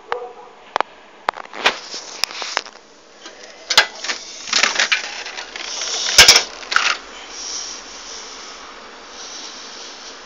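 Handling noise as a curtain and window are opened: a run of sharp clicks and knocks with short rustling bursts, the loudest about six seconds in, settling into a steady faint hiss from about seven seconds in.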